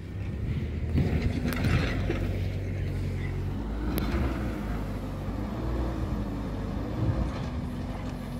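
Heavy machine's engine running steadily while demolishing an old adobe house, its pitch shifting a little, with sharp knocks about one and a half and four seconds in.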